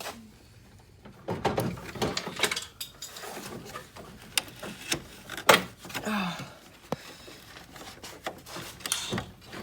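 Hand tools and loose car body parts clicking, knocking and scraping in irregular short strokes, with the sharpest knock about five and a half seconds in.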